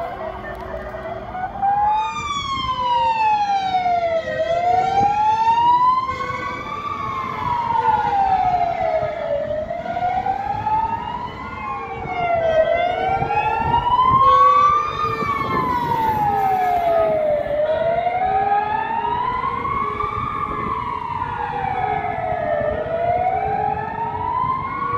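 Fire engine siren wailing, sweeping slowly up and down in pitch about once every five seconds, over passing traffic.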